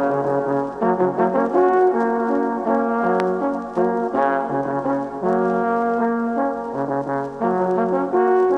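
Two alphorns playing a slow traditional tune in harmony, long held notes moving together from one chord to the next.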